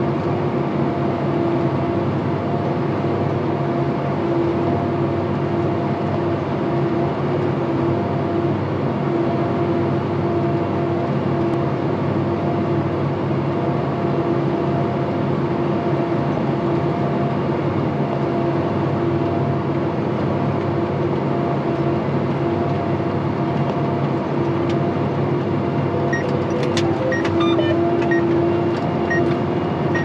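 Tractor engine running at a steady pitch, heard from inside the cab while planting. A few clicks and a run of short electronic beeps come in near the end.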